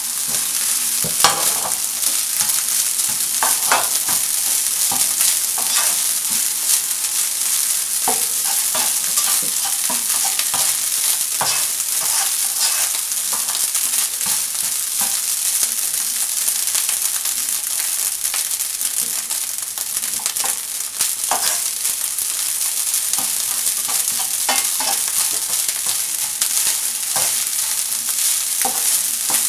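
Egg fried rice sizzling in a frying pan, a steady hiss, while a black slotted spatula stirs and tosses it, scraping and tapping against the pan at irregular moments.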